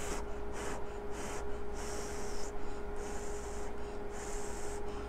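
Someone blowing on a hot spoonful of kimchi stew with tofu and rice to cool it: a run of short breathy puffs, about one a second, close to a clip-on microphone.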